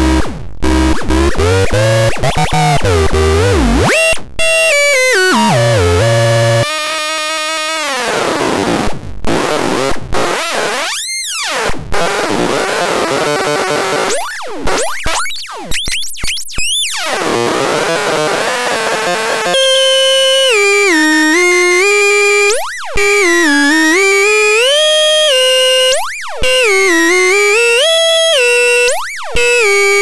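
SENZATRON handmade personal synthesizer played by hand on its touch contact and knob: harsh, gritty electronic tones sweeping up and down in pitch. From about two-thirds through it settles into a buzzy tone wobbling in pitch, broken three times by quick rising swoops.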